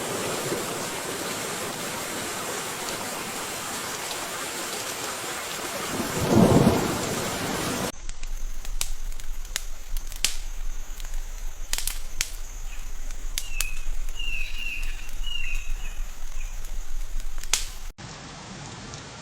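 Steady heavy rain with a single rumble of thunder about six seconds in. Partway through the sound switches abruptly to a quieter hiss with scattered sharp clicks and a few short bird chirps, then drops again near the end to a fainter steady hiss.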